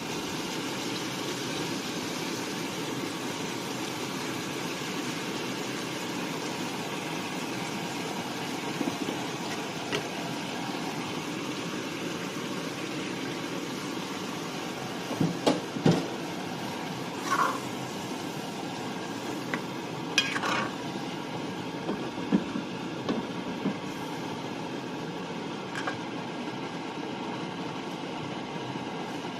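Chicken braising in a pot of spiced liquid: a steady bubbling hiss, with a few short knocks and clinks against the pot about halfway through.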